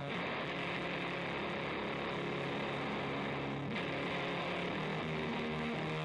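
Electric guitar played through a Grassman fuzz pedal into a Fender Hot Rod Deluxe amp's overdriven channel: a dense, noisy fuzz texture, steady in level, with hardly any distinct notes.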